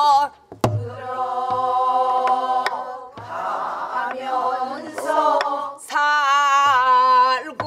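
Women's voices singing a Namdo folk song in the Korean minyo style, a teacher's voice leading the class, with long wavering held notes. A buk barrel drum is struck with a stick a few times to mark the jangdan rhythm.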